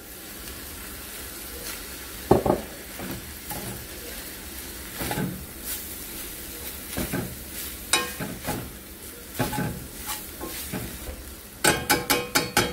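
Ground beef, peppers and onions sizzling in a cast iron skillet while a metal spoon stirs and scrapes through them, knocking against the pan every second or two. Near the end comes a quick run of spoon clinks.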